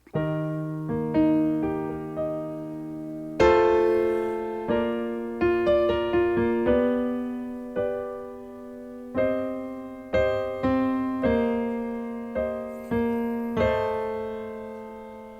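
Keyboard playing a slow instrumental intro: chords struck every second or so, each left to ring and fade before the next.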